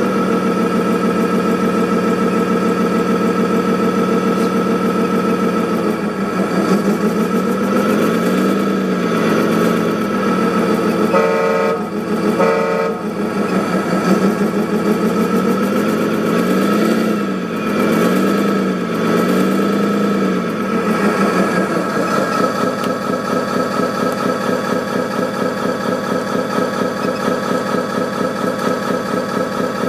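Sound unit of a 1/14-scale Scania R620 RC truck playing a diesel engine idling steadily, revving up and down several times. It sounds two short horn blasts near the middle.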